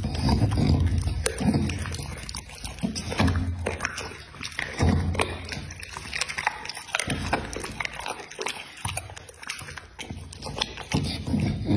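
Dog chewing and biting a raw poultry neck held to its mouth: wet, sloshy chewing in irregular bursts, with many sharp clicks from teeth and bone.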